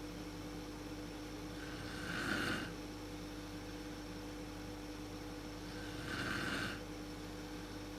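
A woman snoring in her sleep: two snores about four seconds apart, each lasting about a second, over a steady low hum.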